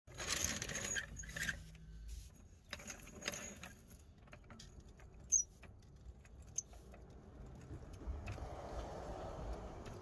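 Metal hand tool clinking, rattling and scraping against the rear suspension hardware as a large wrench is worked onto the shock bolt, with a sharp click about five seconds in.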